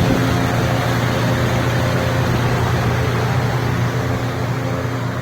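An engine running steadily at idle, a low even hum with a constant pitch.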